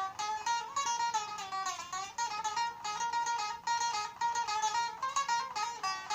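A plucked string instrument playing a quick instrumental melody of many short picked notes between sung verses of a folk song.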